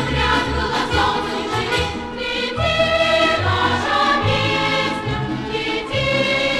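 A choir singing a Soviet pioneer song over instrumental accompaniment with a steady pulsing bass, played back from a 1967 vinyl record.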